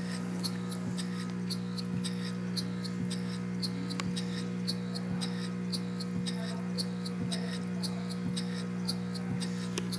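Model piston valve steam engine running on compressed air, ticking lightly and rhythmically at about three to four strokes a second, over the steady electric hum of the aquarium air pump that drives it.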